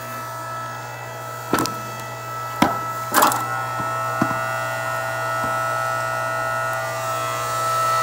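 Hydraulic log splitter's motor running with a steady hum while its wedge splits a log. The wood cracks and splinters sharply three times, about one and a half, two and a half, and three seconds in, followed by a few smaller snaps.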